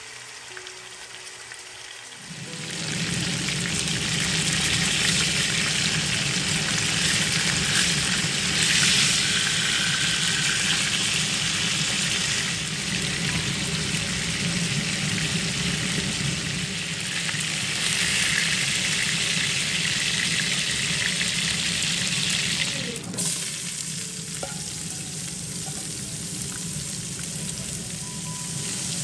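Pieces of turmeric-coated red snapper shallow-frying in hot oil, with a loud steady sizzle that starts about two seconds in. About 23 seconds in it cuts to a quieter sizzle of sliced onions frying as a spatula stirs them.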